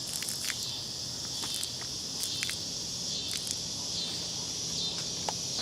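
Steady, high-pitched chorus of insects chirping, with scattered small clicks and rustles.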